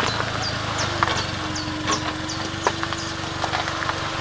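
Suzuki Jimny JB43's 1.3-litre four-cylinder petrol engine running at low revs as the 4x4 crawls down a rocky track, with a steady whine joining about a second in. Stones crack and pop under the tyres throughout.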